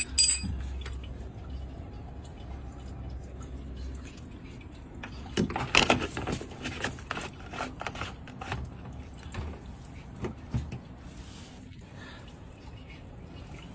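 Clicking and clattering of handled hard parts, with a cluster of knocks about five to six seconds in. A low hum stops about four seconds in.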